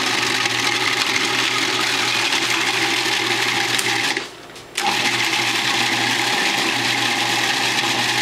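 Electric food processor running, its blade chopping pieces of raw conch (scungilli) fine like ground meat. The motor runs steadily, stops for under a second about four seconds in, then starts again.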